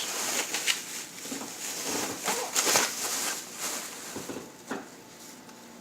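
Kitchen handling sounds: dry black rice rustling and pattering as it is handled and poured, with scattered light clicks.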